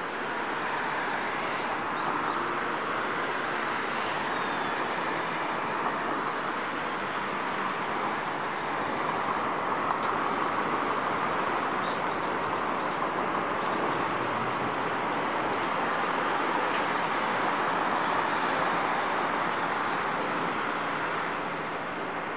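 Steady hum of city road traffic that swells and eases as vehicles pass, with a short run of quick bird chirps about halfway through.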